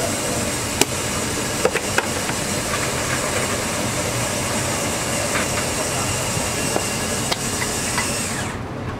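Steady sizzling hiss of food cooking on a flat-top griddle, with scattered small pops and crackles. It cuts off suddenly near the end.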